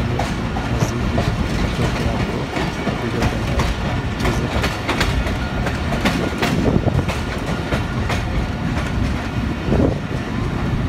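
Passenger train coach running along the track: a steady rumble with sharp clicks of the wheels over the rail joints, heard from the coach's open doorway.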